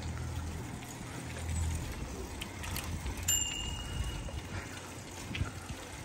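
Bicycles riding along a paved towpath: a low rumble of tyres and wind with small clicks and rattles. About three seconds in, a bicycle bell is struck once and rings on for a second or so.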